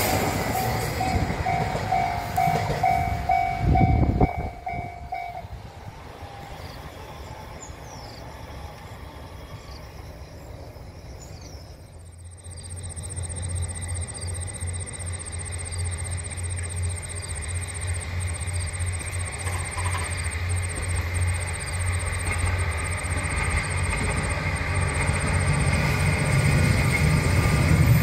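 A railroad crossing bell rings in a quick repeating pattern and stops about five seconds in. From about halfway, the low engine rumble of a diesel railcar grows steadily louder.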